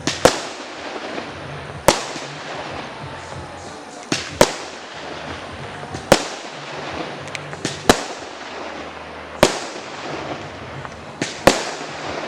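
Fireworks going off: about nine sharp, loud bangs every second or two, some in quick pairs, each with a short echo, over a continuous crackle.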